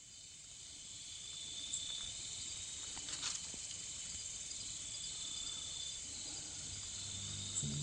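A steady chorus of night insects, high-pitched trilling that fades in at the start. Music begins near the end.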